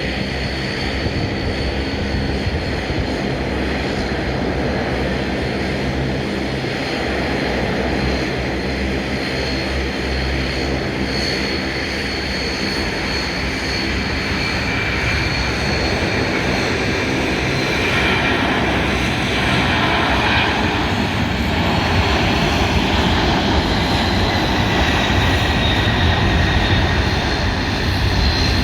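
Three-engined McDonnell Douglas MD-11F freighter's jet engines running at takeoff power, a steady rushing roar with a high whine, growing a little louder in the second half.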